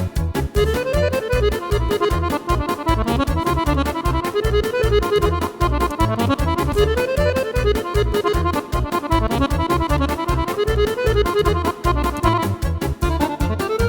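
A Yamaha arranger keyboard playing one of its accompaniment styles: a steady drum and bass beat under a lead melody that rises and falls in repeated phrases.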